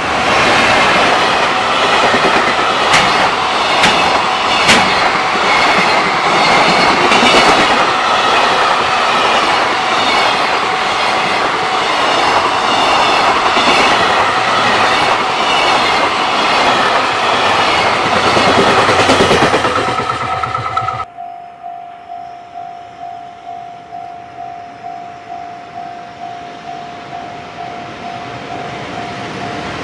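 Container freight train passing close by, its wheels clattering over rail joints with a heavy steady rumble. About 20 seconds in it cuts off suddenly, leaving a level-crossing warning bell ringing in a steady repeated beat.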